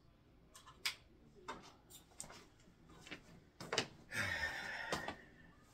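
Handling noises in a small kitchen: a few scattered clicks and knocks, then a louder scraping, rustling sound for about a second about four seconds in, cut off by a sharp click.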